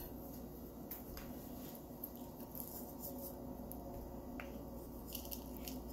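Low steady room hum with a few faint, light clicks.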